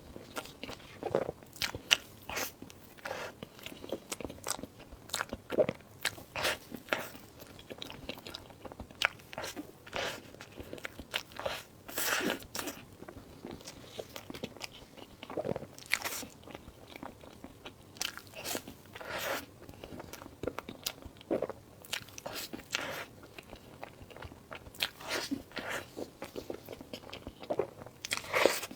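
A person eating close to the microphone: repeated crunchy bites and chewing, coming in irregular clusters of sharp clicks.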